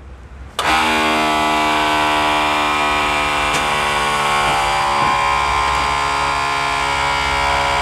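Electric cab-tilt pump of an Isuzu four-axle truck starting suddenly about half a second in and running with a steady electric whine as it lifts the cab.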